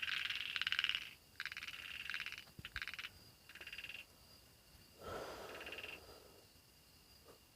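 Frogs calling in rapid, pulsing trills. The chorus breaks into shorter bursts and stops about six seconds in, over a faint steady high-pitched tone.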